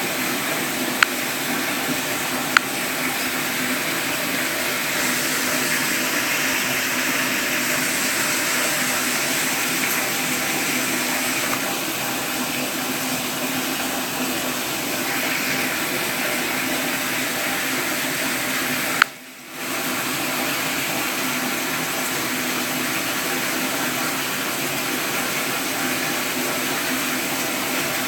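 Steady rush of running water. A few sharp clicks sound over it, about one and two and a half seconds in. Near the end another click comes just before the water cuts out for a moment and resumes.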